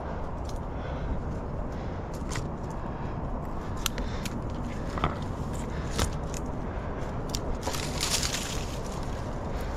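Tree branches and leaves being handled while climbing: scattered twig clicks and cracks, with a denser rustle of leaves about eight seconds in.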